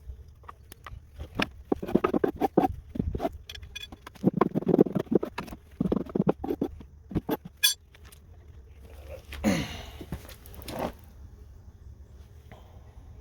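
Irregular rustling, crackling and tapping of hands and tools pulling a yellow jacket nest out of a wooden birdhouse. A short falling squeak comes near the end.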